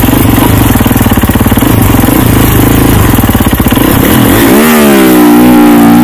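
Snowbike engine (a dirt bike on a snow track kit) chugging at low revs with a fast pulsing beat, then revving up sharply about four and a half seconds in and holding at high revs under load.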